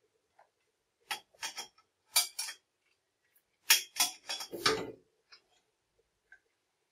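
Stainless steel pans, a steel sieve and a wooden spoon knocking and clattering on a gas hob: a few sharp knocks a second or two in, then a louder run of clanks around four seconds in.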